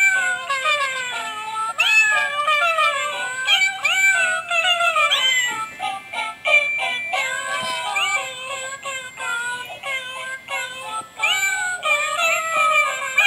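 Musical greeting card playing a Christmas tune sung in recorded cat meows through its tiny speaker, a quick run of short rising meow notes, thin, with no bass.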